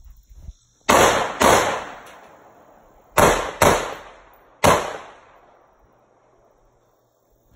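Five gunshots, two quick pairs and then a single shot, each with a long echoing tail.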